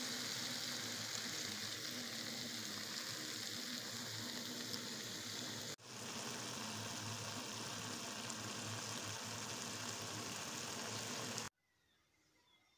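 Chopped pumpkin stems frying in a pan, a steady sizzle. It drops out for an instant about six seconds in and stops abruptly near the end.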